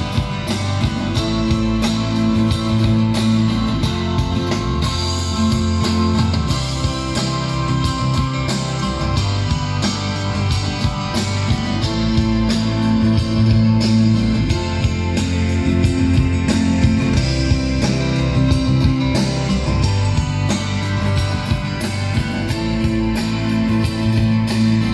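Music with a steady beat and heavy bass playing through a pair of bookshelf speakers driven by a Fosi Audio BT20A Pro class-D amplifier (TPA3255 chip), as a listening test of the amp.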